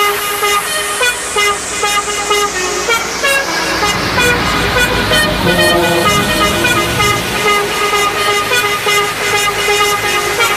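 Heavy trucks' air horns sounding a string of steady tones, with a diesel truck rumbling close past about halfway through.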